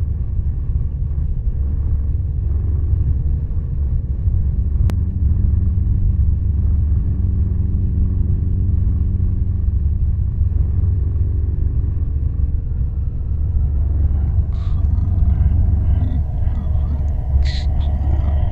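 Steady, low rumbling drone with faint held tones above it, from an ambient film soundscape. A single sharp click comes about five seconds in, and a few brief crackles sound near the end.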